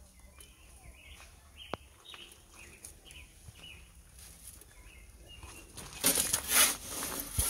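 Faint, short bird chirps over a quiet background. About six seconds in, loud rustling and rubbing noise starts as the camera is handled and moved.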